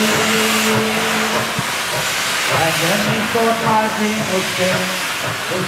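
Steam locomotive (4-8-2) hissing loudly as steam blasts from its open cylinder drain cocks while it moves slowly.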